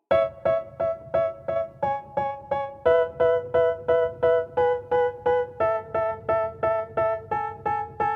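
Background music: a song's keyboard intro starts suddenly, a repeated note pattern at about three notes a second, moving to a new chord every couple of seconds.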